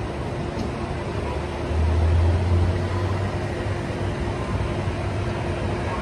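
Steady road-traffic noise from a busy expressway below. A deeper low engine rumble swells for about a second and a half, starting a little under two seconds in, as a heavy vehicle passes.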